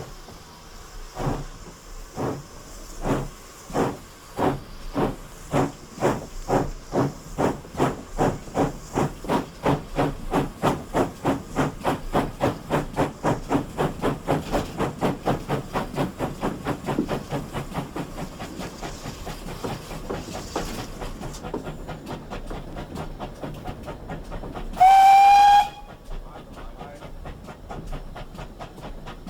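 GWR 6400-class pannier tank locomotive no. 6412 getting away under steam. Its exhaust beats quicken from about one a second to two or three a second, then ease and fade. About 25 s in comes one short, loud blast on the steam whistle.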